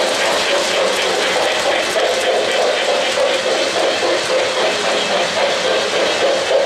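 O-gauge three-rail model trains running past: a steady rolling rumble and whir of metal wheels and motors on the track, with light clicking over the rail joints.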